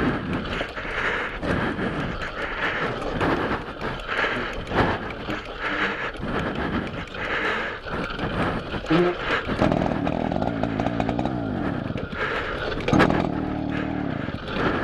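Riga moped's small two-stroke engine being started: uneven noise and knocks, then the engine catches about ten seconds in with its revs falling away, and picks up again briefly near the end.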